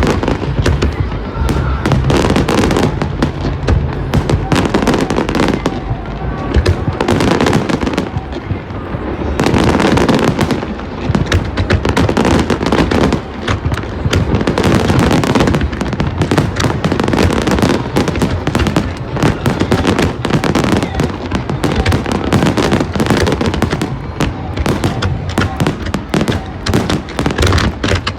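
A fireworks display going off in a dense, continuous barrage of bangs and crackling, with no let-up.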